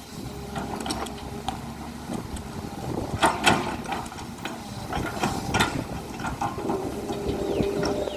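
Hydraulic excavator at work: its diesel engine runs steadily under a series of sharp metallic clanks and knocks, loudest about three and a half seconds in and again around five and a half seconds.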